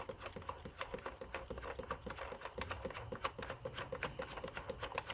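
Faint, irregular light clicks and rattles of hands tightening the threaded backing on a trickle-charger socket mounted through a plastic ATV dash panel.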